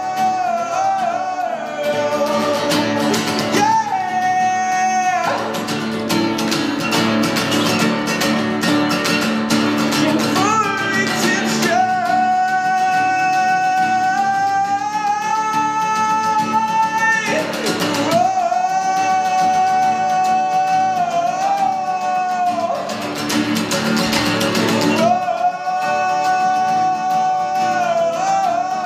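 Live acoustic song: two acoustic guitars strummed steadily under singing that holds long notes for several seconds at a time.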